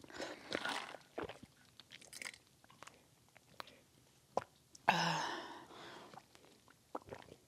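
Close-miked mouth sounds of a person sipping a drink through a straw: soft sucking, swallowing and small wet clicks. About five seconds in comes a louder breathy noise lasting about a second.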